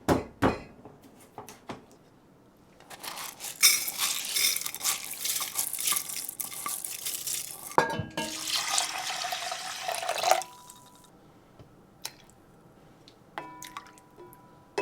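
Water running from a kitchen tap onto dishes in the sink, with clinks of crockery. After a knock, a container is filled under the tap, its pitch rising a little as it fills. A ringing clink follows near the end.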